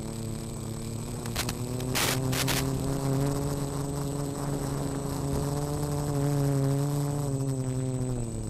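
Quadcopter's four brushless motors and props buzzing in flight, the pitch drifting a little up and down with throttle. A few short bursts of hiss come about two seconds in, with a faint steady high whine.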